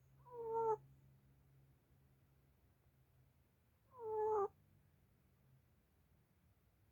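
A sleeping pet snoring with a high, squeaky whistle on the breath, twice, about three and a half seconds apart. Each whistle swells and then stops short.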